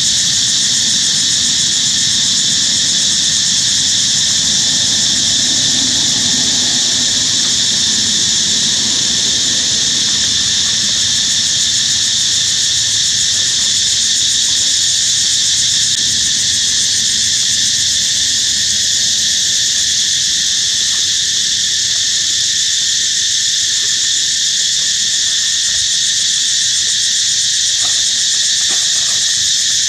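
Loud chorus of insects droning without a break, a steady high-pitched hum.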